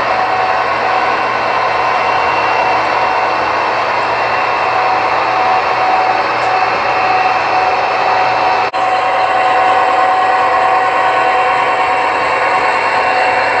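HO-scale model train running: a steady mechanical hum with a steady whine from the locomotives' motors and running gear. The sound drops out for an instant about nine seconds in, then carries on.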